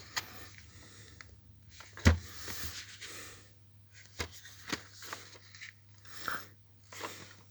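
Handling the packaging of a DVD box set during unboxing: a series of short scrapes and rustles, with one sharp knock about two seconds in.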